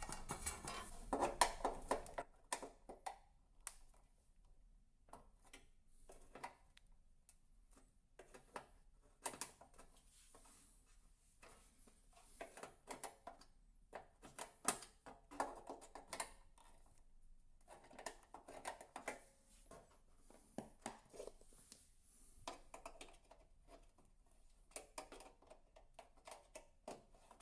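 Faint, scattered clicks and scrapes of steel pliers working at small screws in an electric radiator's plastic housing.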